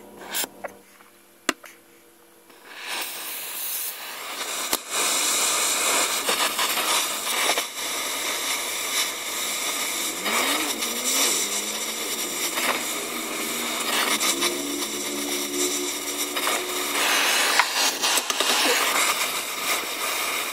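Oxy-fuel cutting torch lit about three seconds in and running with a steady hissing roar and crackling as its flame burns leftover slag off a rusted exhaust mount. There are brief whistling tones around the middle.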